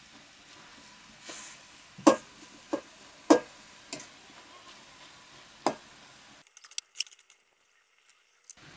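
Metal spatula stirring cabbage curry in a steel kadai, knocking against the pan in a handful of sharp clinks about half a second to a second apart. Near the end it drops to near silence with a few faint ticks.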